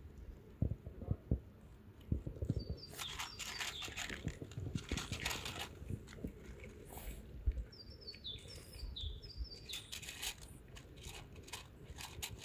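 Two cats crunching dry kibble close by, with many quick irregular crunches. Small birds chirp in the background: short falling chirps about three seconds in and again several times around eight to nine seconds.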